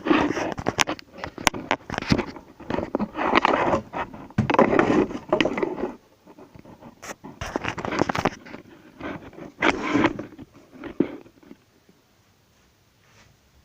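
Hands handling items and packaging: scraping and rustling with sharp clicks, busiest for the first six seconds, then a few quieter clicks and rustles.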